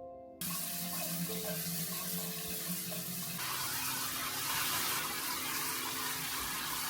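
Water tap running into a sink, turned on abruptly; the rush of water grows brighter about three seconds in.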